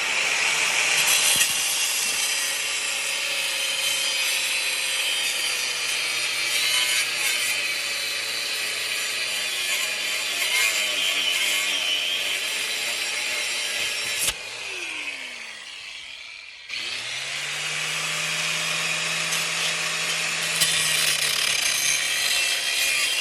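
Electric power tool cutting into a rusted threaded metal pipe fitting, a harsh steady grinding noise. About 14 s in the cut stops and the motor winds down with a falling pitch. About 17 s in it starts up again and carries on cutting.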